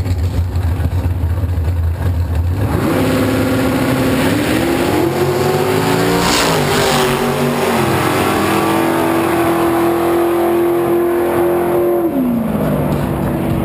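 Drag-racing engines idling with a low rumble on the start line, then launching and running at full throttle down the strip. A race pickup truck passes close by about six seconds in, its engine note dipping as it goes by, while the engines hold a high steady note until they come off the throttle and fall away near the end.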